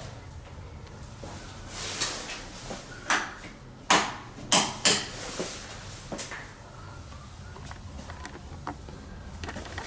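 A handful of sharp knocks and clunks of hard objects being handled in a small, echoing room. The loudest three come close together about four to five seconds in.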